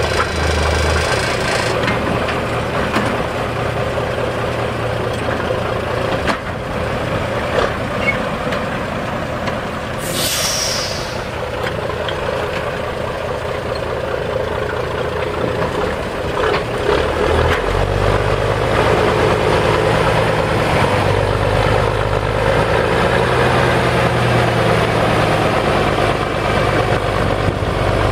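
1938 Fageol logging truck's engine running as the truck drives down off a trailer, with a short hiss of air from the brakes about ten seconds in. The engine note grows heavier and deeper from about two-thirds of the way through as it pulls off onto the ground.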